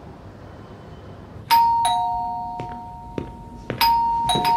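Two-tone ding-dong doorbell chime, a high note followed by a lower one, rung twice about two seconds apart.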